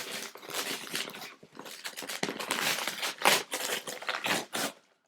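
Heavily taped outer packaging of a cardboard box being torn and peeled away, with irregular ripping and crinkling. The loudest rip comes a little past three seconds in, and the sound cuts off abruptly near the end.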